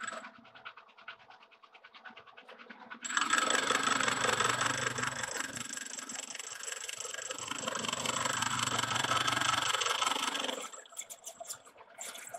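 Engine lathe facing a steel part flat: the machine runs with a light regular ticking, then about three seconds in the tool bites and a loud hiss of cutting with a thin high whine carries on for several seconds before the cut stops near the end.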